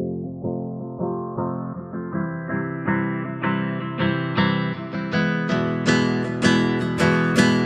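Background music: acoustic guitar strumming in a steady rhythm, about two strums a second, the sound growing steadily brighter.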